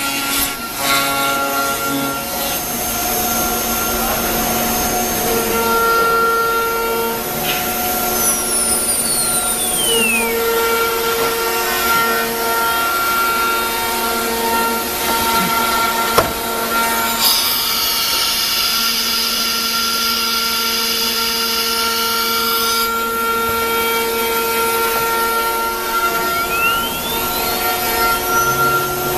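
ATC CNC router running, its spindle giving a steady whine over a hum of machine tones. About a third of the way in the whine falls as the spindle winds down; past the middle come a sharp knock and a loud hissing burst lasting several seconds, and near the end the whine rises again as the spindle spins back up.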